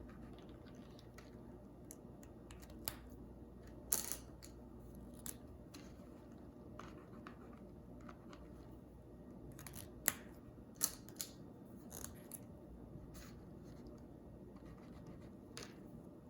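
Pentel Hybrid Dual Metallic gel pens being handled and swatched on paper: scattered sharp clicks of pens and caps, the loudest about four seconds in and twice around ten to eleven seconds in, over faint scratching of pen tips on paper and a low steady hum.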